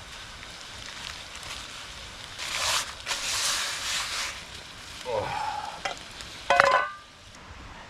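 Food sizzling in cookware over a campfire, with a loud hiss lasting about two seconds. It is followed by a falling scrape and a short, ringing metal clank near the end.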